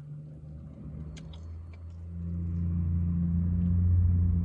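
A motor vehicle's engine running close by with a low steady hum that swells louder over a couple of seconds, as of a vehicle pulling up or passing the parked car. A few light clicks sound about a second in.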